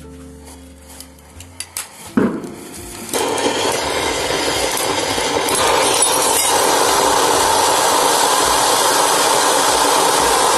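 Diwali anar (fire fountain) burning inside a glass beer bottle. A few small crackles are followed, about two seconds in, by a sharp crack as the glass bottle breaks. From about three seconds in the fountain sprays with a loud, steady hiss.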